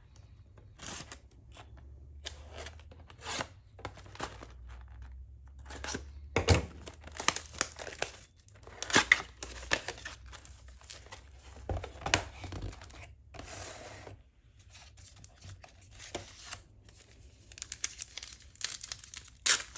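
Cardboard trading-card box being torn open and its foil card packs handled: a run of short tearing and crinkling rustles, heaviest around six to nine seconds in and again around twelve.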